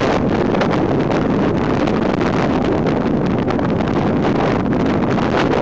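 Wind rushing over a microphone held out of a moving passenger train's window, over the steady running noise of the train on the track.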